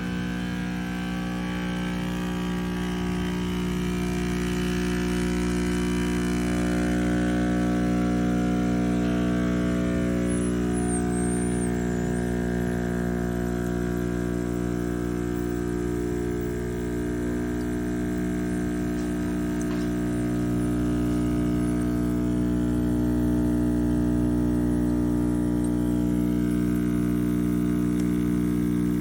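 De'Longhi Dedica Arte espresso machine's vibratory pump running with a steady buzzing hum, which starts abruptly and holds an even pitch throughout.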